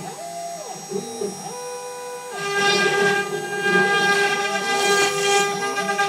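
CNC router cutting wood: a steady high spindle whine and the rasp of the bit in the board, with motor tones gliding up and down as the head moves. The cutting noise eases for the first two seconds or so, then comes back louder.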